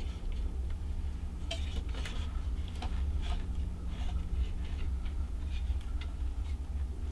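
Low, steady wind rumble in a snowstorm, with scattered light, irregular ticks and taps.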